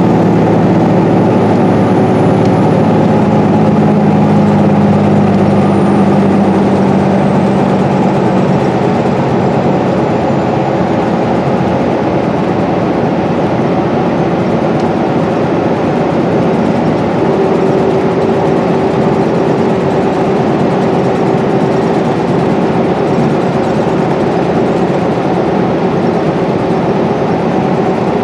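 Inside a 2012 Gillig BRT hybrid bus cruising at freeway speed: the steady drone of its Cummins ISB6.7 diesel and Allison hybrid drive mixed with tyre and road noise. A faint high whine falls slowly in pitch over the first ten seconds or so.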